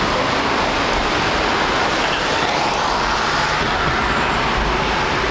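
Steady road and traffic noise heard from inside a moving car, an even rush with no sudden events.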